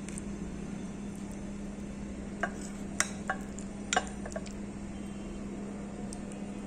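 A metal spoon clicking and scraping as a thick, creamy filling is spooned out onto toast: about half a dozen light clicks bunched in the middle, over a steady low hum.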